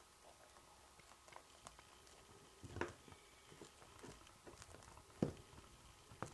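Pet chinchillas moving about in their cage: faint, scattered small taps and scuffles, with a few louder knocks about three seconds in and again just past five seconds.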